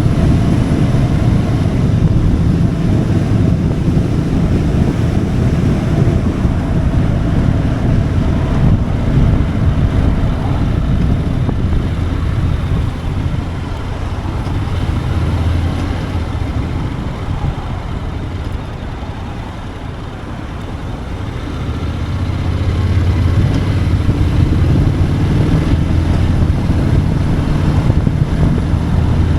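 Motorcycle engine running under way, mixed with wind rush on the microphone. The engine sound eases and grows quieter about two-thirds of the way through, then builds back up.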